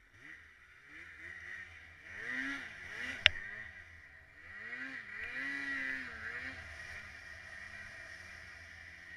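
Snowmobile engine revving up and down in two main surges as the sled works through the snow, then settling to a steadier, lower drone. A single sharp snap about three seconds in is the loudest moment.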